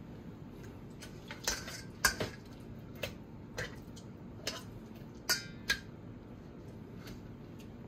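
Knife and utensils clinking and tapping against cookware while cutting cooked beef ribs: about nine short, sharp knocks at irregular intervals.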